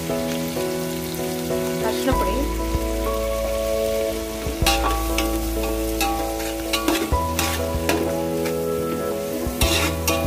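Onions, tomatoes, green chillies and curry leaves sizzling in oil in an aluminium pot. A steel spatula stirs them, scraping and knocking against the pot several times in the second half.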